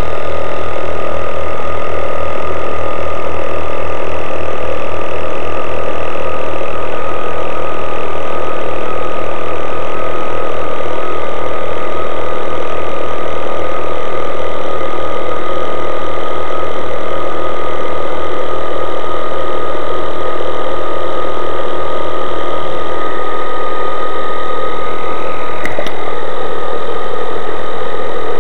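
Small electric drive motor of a 1/72 scale RC submarine model running steadily: a constant whine over a pulsing low hum. The hum changes about three quarters of the way through, and there is a single sharp click near the end.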